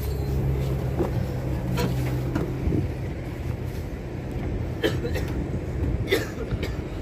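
Diesel truck engine idling with a steady low hum that eases off after about two and a half seconds into a lower rumble, with a few short sharp sounds over it.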